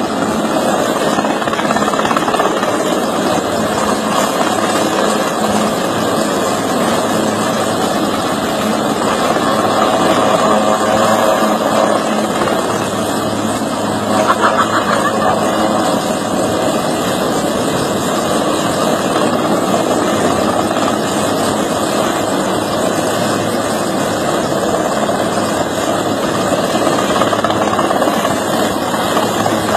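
An engine running steadily, with one brief louder burst a little before halfway.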